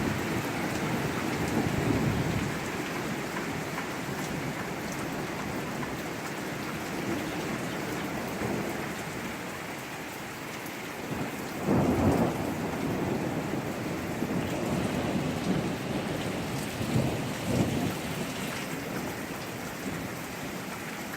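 Heavy rain pouring steadily, with deep claps of thunder rumbling through it: one near the start, a stronger one about twelve seconds in, and a weaker one a few seconds later.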